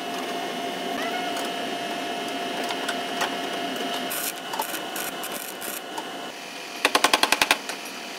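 Pneumatic body tool working on car body sheet metal, a fast steady rattle with a steady tone through it. Near the end comes a quick run of about nine sharp hits.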